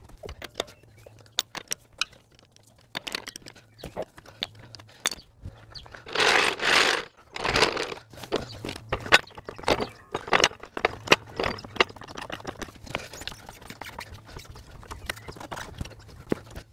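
Wheel nuts being cracked loose with a breaker bar, then a hydraulic trolley jack being worked to raise the car, giving many sharp metallic clicks and knocks. A loud scraping rush comes about six seconds in, and the clicking grows quicker and more regular in the second half as the jack is pumped.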